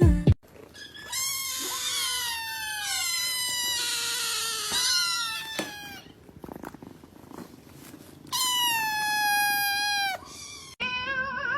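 A cat meowing: a run of high meows falling in pitch, a pause, then one long meow. A wavering, warbling sound starts near the end.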